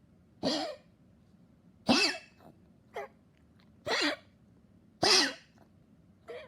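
A dog coughing over and over: six coughs about a second apart, the second and fifth loudest, the third and last faint. It is the non-stop cough of a dog that has grown weak.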